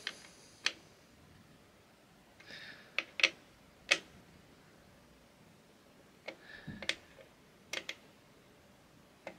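Small metal driver key clicking against and turning the screws of a Thermalright LGA 1700 contact frame, tightened an eighth of a turn at a time. About eight sharp, separate clicks, some in quick pairs, with quiet between them.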